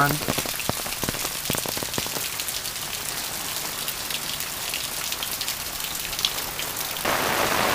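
Heavy tropical-storm rain falling, with sharp ticks of individual drops close by in the first couple of seconds over a steady hiss. About seven seconds in the rain sound abruptly gets louder.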